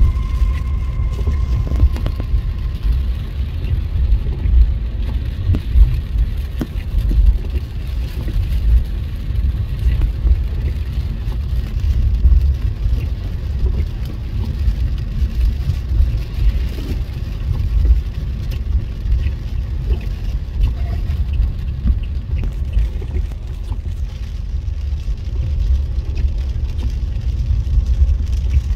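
Low, gusty rumble of wind buffeting the microphone, rising and falling irregularly, with a faint hiss above it.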